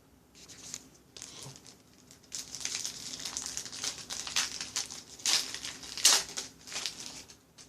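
Trading card pack wrapper crinkling and tearing as it is opened by hand: a few light crackles at first, then about five seconds of dense crinkling with the sharpest crackles near the end.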